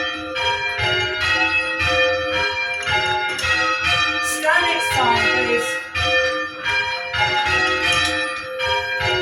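Church tower bells being rung in changes: one bell after another struck at about three to four strokes a second, each note ringing on under the next.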